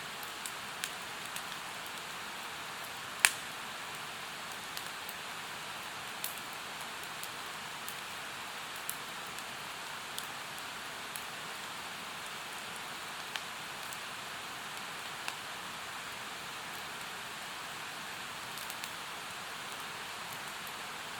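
Firewood crackling in a campfire, with scattered small pops and one sharp, loud pop about three seconds in, over the steady rush of a mountain stream.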